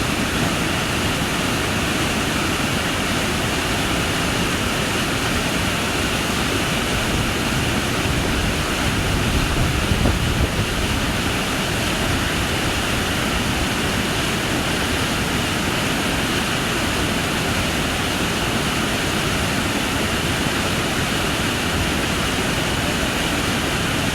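Steady rush of a waterfall, a dense even noise, swelling briefly in the low end about ten seconds in.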